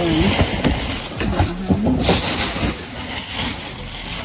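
Plastic shopping bag rustling and crinkling as it is handled, with scattered light knocks of packages, loudest in the second half. A few short humming, pitched notes sound in the first two seconds.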